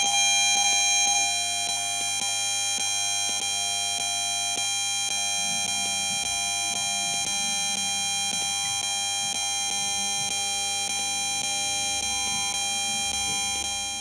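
Bluetooth radio signal made audible by an RF meter: a steady, high-pitched electronic buzz of many tones at once, with fast irregular crackling under it. It fades out near the end.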